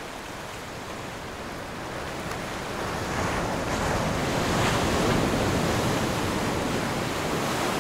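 Ocean surf washing up a sandy beach: a steady rush of breaking waves that swells louder over the first few seconds as a wave runs up the sand.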